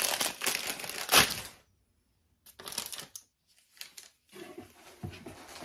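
Crinkling and rustling of a small package's wrapping being torn and pulled open by hand, with a sharp snap about a second in. A short quiet pause follows, then more brief rustles as the packet is handled.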